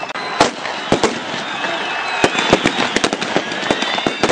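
Blank rifle fire and maneuver pyrotechnic charges from a mock battle: a rapid, irregular series of sharp bangs, growing denser after about two seconds, over a steady background noise. High wavering tones join about a second and a half in.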